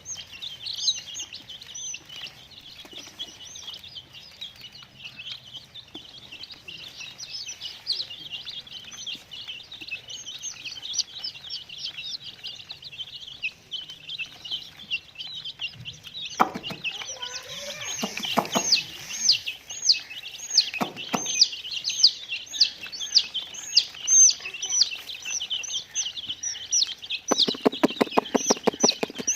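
Many baby chicks peeping at once, a dense, continuous chorus of high chirps. From about halfway a louder chirp repeats at an even pace over the chorus, with a few knocks, and a rapid run of clicks near the end.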